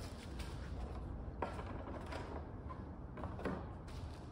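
Handling noises from a plastic paint tray and foam roller being picked up and set out on a worktable: a few separate light clicks and knocks over a low steady hum.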